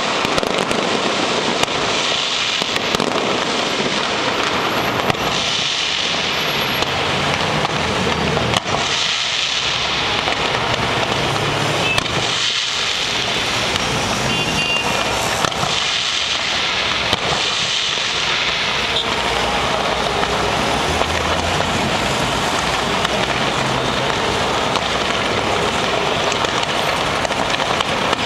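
Fireworks and firecrackers going off together: a dense, continuous crackle of many small bangs, with deeper rumbles swelling and fading through the middle and later part.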